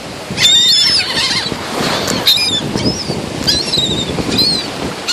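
A flock of seagulls calling, several short high-pitched cries in quick succession, crowding in to be fed, over a steady wash of surf and wind.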